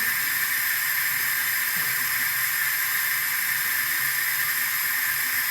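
Steady, even hissing noise that neither rises nor falls.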